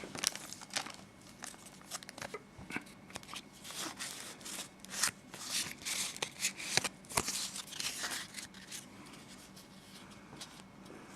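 A Pokémon Mysterious Treasures booster pack's foil wrapper crinkling and being torn open by hand: a run of sharp crackles and clicks that dies down over the last couple of seconds.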